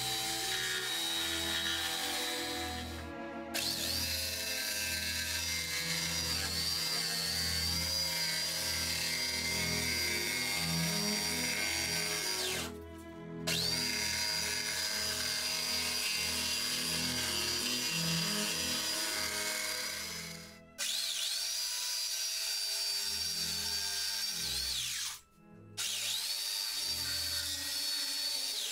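Corded electric jigsaw cutting plywood, its motor whining steadily; it stops about four times and winds back up in pitch each time it restarts. Background music plays underneath.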